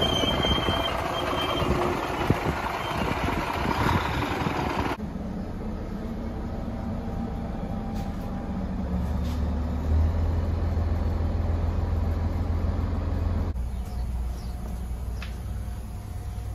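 A diesel railbus at a station platform, with a squealing tone that fades over the first few seconds. Then, inside the passenger cabin of the ZNTK Poznań Regio Tramp railbus, its diesel engine drones low, stepping up in pitch and loudness about ten seconds in, before dropping to a quieter hum near the end.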